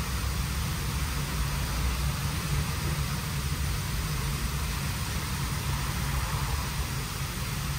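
WashTec SoftCare² car wash gantry running: a steady rushing noise over a low hum.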